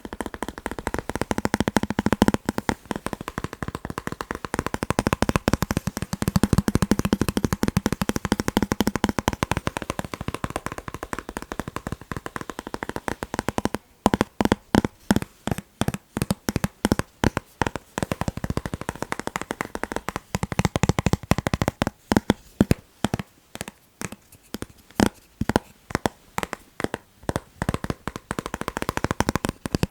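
Fast tapping on chocolate: a dense run of quick taps for about the first half, then short rapid flurries of taps with brief pauses between them.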